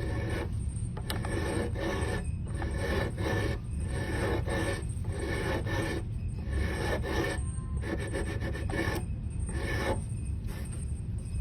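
Hand filing on a cello nut: repeated back-and-forth rasping strokes, about two a second, with a few short pauses, as the nut is lowered and reshaped.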